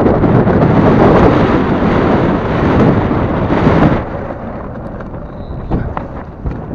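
Rush of wind on the microphone mixed with longboard wheels rolling on asphalt while sailing along, loud and even, then dropping sharply about four seconds in, with a few light clicks near the end.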